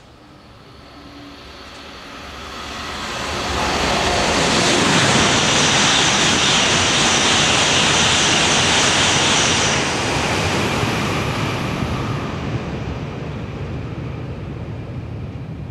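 E5 series Shinkansen bullet train passing through at high speed without stopping: a rushing roar that swells over a couple of seconds, holds loud for about six seconds with a faint steady high whine on top, then fades away slowly.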